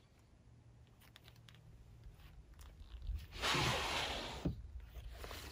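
Wooden slide-out table being pushed back into its slot in an SUV's rear cargo platform: a scraping slide of about a second, starting about three seconds in and ending with a light knock.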